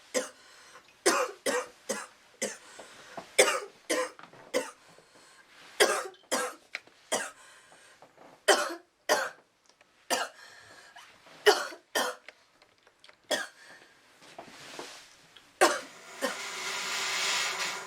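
A woman coughing over and over in irregular fits, about twenty short coughs, from breathing in thick vape smoke. Near the end comes a longer drawn-out vocal sound.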